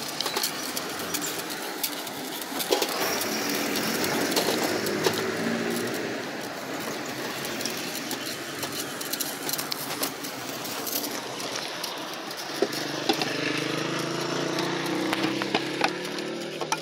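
Outdoor street ambience with a motor vehicle's engine running, its pitch rising slowly in the last few seconds, over scattered small clicks and knocks.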